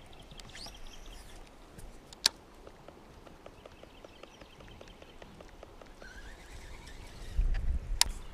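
Quiet outdoor river ambience with faint bird calls, broken by two sharp knocks, one about two seconds in and one near the end. A low rumble comes up just before the second knock.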